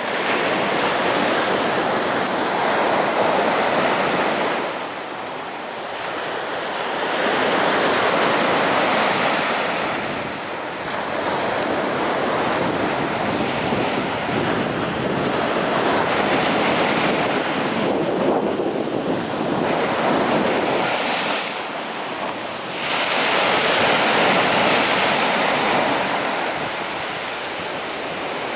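Sea waves breaking on a beach, the surf swelling and easing every several seconds.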